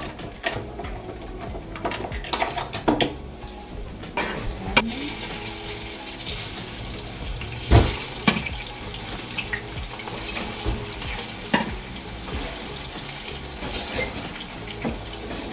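Sliced plantains sizzling as they fry in hot oil, with the clicks and knocks of a fork turning them in the pan.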